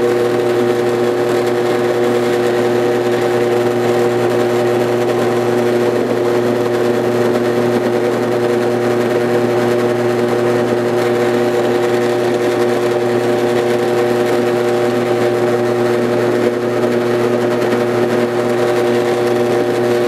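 Drill press motor running at a steady speed, spinning a roll crimper as it is fed down onto a 12-gauge shotshell hull to roll-crimp the mouth; a loud, even mechanical hum.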